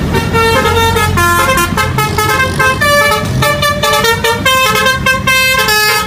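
Indonesian 'telolet' bus horn playing a rapid tune of stepped musical horn notes, one after another without a break, over the low rumble of the bus.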